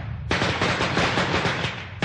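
A string of Chinese firecrackers going off in a rapid, dense crackle of bangs. There is a short break just after the start, and the bangs thin out near the end.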